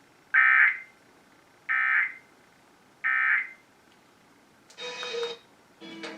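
Emergency Alert System end-of-message data tones: three identical half-second bursts of warbling digital tones, about 1.4 s apart, marking the end of the alert. Near the end comes a shorter, quieter burst of a different sound with a held tone in it.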